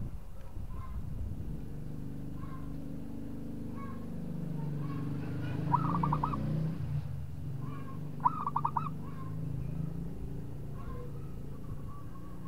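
Zebra dove (perkutut) cooing, with two quick rolling bursts of four or five notes, about six and eight seconds in. Softer short call notes repeat every second or so, over a low steady drone.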